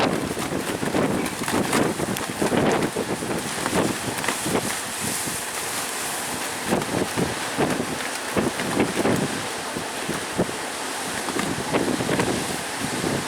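Strong wind buffeting the microphone in irregular gusts, over a steady hiss of heavy surf.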